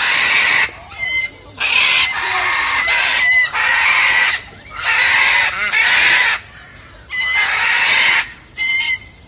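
Birds giving a string of loud, harsh calls, about one a second.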